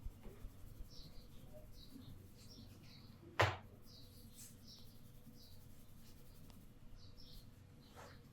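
One sharp crack from the head-and-neck massage about three and a half seconds in, over small birds chirping in the background.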